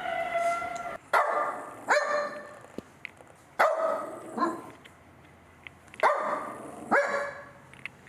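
A dog barking: three pairs of loud barks, the barks in each pair about a second apart. A held, pitched sound stops about a second in.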